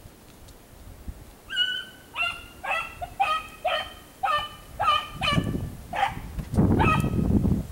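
A lone beagle baying on a rabbit's trail: short, pitched hound barks repeated about twice a second, starting about a second and a half in. A low rumbling noise grows underneath in the second half.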